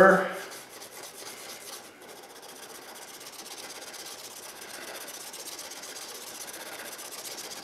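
Steel plane iron rubbed back-down on a sharpening stone, a steady gritty rub of metal on stone, to remove the burr from the freshly honed edge.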